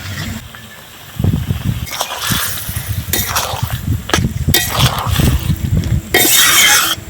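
Metal spoon clanking and scraping against a cooking pot while vegetables are stirred into a boiling curry, with several sharp knocks, rumbling handling noise, and a short loud hiss near the end.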